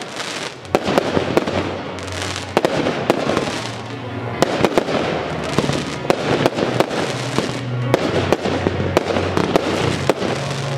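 Fireworks display: a rapid series of aerial shells bursting and crackling, over music with a low, moving bass line.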